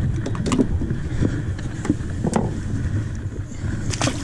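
Steady low wind rumble on the microphone aboard a small boat, with a few sharp knocks, the strongest near the end as the camera bumps against the boat's gunwale.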